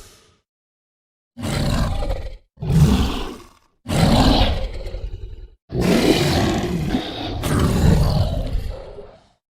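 Designed dinosaur roar sound effects for Alectrosaurus, a small tyrannosauroid: after about a second of silence, four roars in a row with short gaps between them, the last one the longest.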